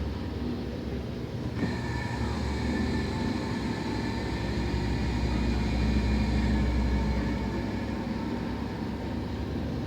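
LG washing machine running a wash cycle: a steady low hum, with a whine and hiss that start about one and a half seconds in as the drum starts turning again after a pause. This is the unpleasant background noise the owner calls horrible, like something deflating, and which appeared after the machine was descaled.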